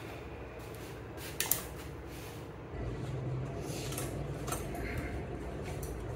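A few small clicks and clinks of barber's tools being handled, one sharper clink about a second and a half in, over a low steady hum that grows louder about three seconds in.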